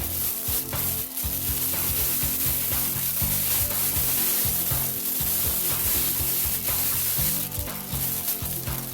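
Plastic packaging rustling and crinkling as a jacket is pulled out of it, over background music with steady low notes.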